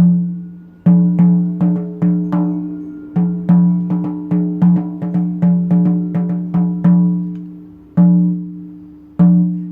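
Large shamanic frame drum struck in a steady beat of about three strokes a second, each stroke ringing on with a clear low tone; near the end the beat slows to a few widely spaced strokes.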